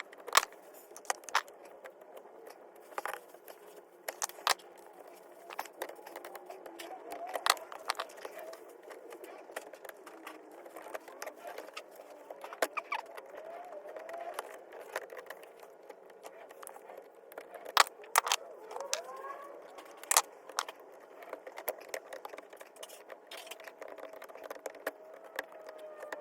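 Scattered sharp clicks and light metallic clinks at irregular intervals, small metal parts and hand tools being handled during electrical outlet installation.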